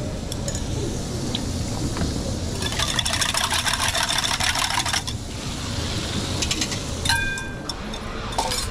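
Commercial kitchen noise: a steady low rumble of fans and equipment, with a couple of seconds of crackling hiss in the middle, like food sizzling on a hot griddle, and a short ringing tone near the end.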